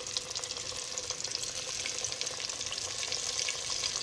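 Floured freshwater drum (gaspergou) fillets deep-frying in hot oil: a steady sizzle crackling with many fine pops, the sound of oil hot enough for the fish to fry right away.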